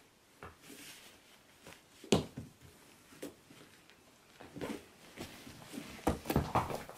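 Baby goat's hooves and body thumping and scuffling on floor mats and a cushion as it jumps and tumbles: a few irregular knocks, the loudest about two seconds in, and a quick flurry of them near the end.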